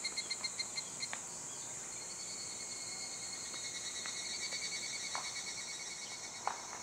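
Steady high-pitched chorus of insects such as crickets, with a rapid pulsing chirp that fades out about a second in.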